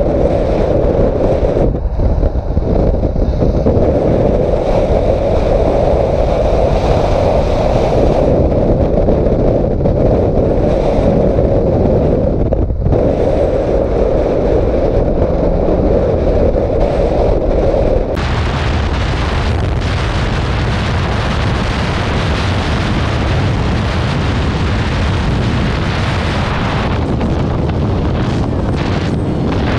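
Loud, steady wind rush on a motorcycle rider's camera microphone at road speed, with low riding rumble underneath. About two-thirds of the way through the sound changes abruptly to a brighter, hissier wind roar as a different riding clip begins.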